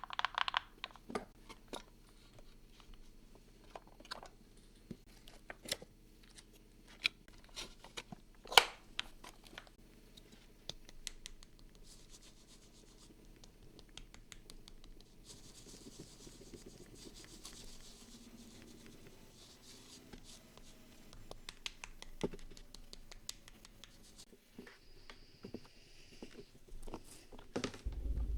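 Paper-crafting handling sounds: scattered sharp clicks and taps for roughly the first ten seconds, then a stretch of soft scratching and rubbing on paper, with a few more clicks near the end.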